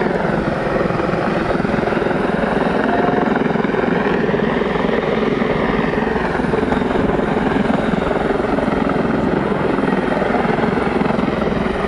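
Helicopter flying overhead: a loud, steady rotor and engine drone whose tone shifts slowly as it moves across.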